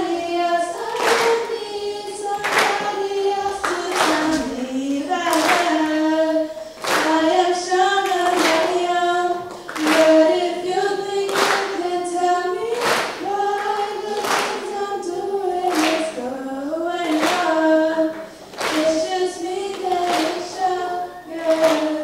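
Two girls singing a song together into microphones without instrumental backing, over steady claps about every 0.7 seconds keeping the beat.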